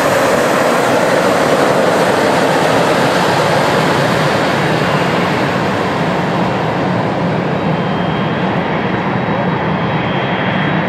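Boeing 747-400 freighter's four jet engines running, a steady loud rush with a faint high whine coming in about halfway through.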